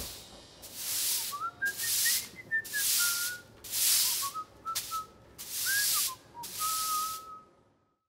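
Push broom swept across a concrete floor in about six long strokes, roughly one a second, while a person whistles a short tune that ends on a held note. Both stop suddenly near the end.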